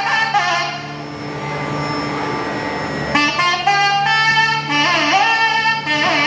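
Nadhaswaram playing an ornamented melody in raga Abheri, the tone sliding and bending between notes over a steady drone. About a second in the melody stops for roughly two seconds, leaving only the drone, then comes back with more sweeping slides.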